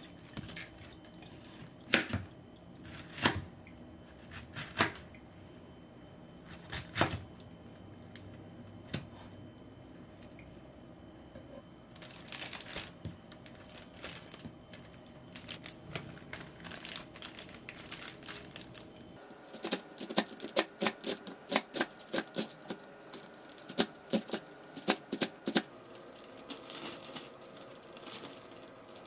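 Kitchen knife chopping green onion on a wooden cutting board: a run of quick sharp taps, about three a second, in the second half. Before it come a few separate knocks on the board and the crackling rustle of a thin plastic bag being handled.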